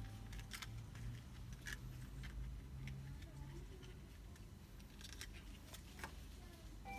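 Scattered light clicks and taps of small hard objects being handled, about a dozen over several seconds, over a low steady hum.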